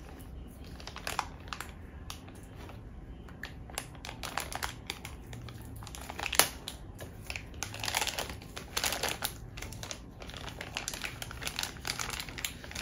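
Small blind-bag toy wrapper crinkling and rustling as it is bitten and torn open by hand, in irregular spells with a sharp snap about six seconds in.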